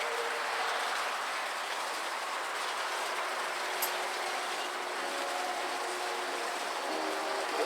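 Steady rushing outdoor background noise, even and without a clear rhythm. Soft music with held notes fades in over the last few seconds.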